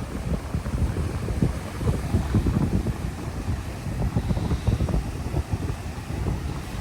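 Gusty wind buffeting the microphone, a rumbling, uneven noise that rises and falls throughout.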